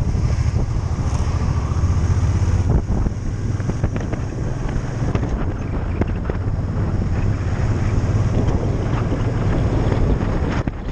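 Motorcycle engine running as the bike rides along, with wind noise buffeting the microphone over a steady low rumble.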